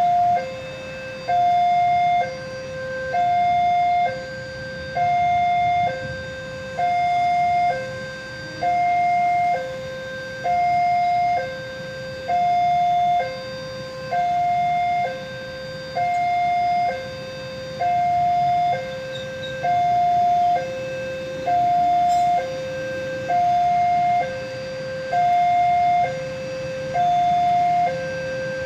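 Railway level-crossing warning alarm sounding steadily. An electronic two-tone signal alternates between a higher and a lower tone, one high-low pair about every two seconds, the sign that the crossing is closed for an approaching train.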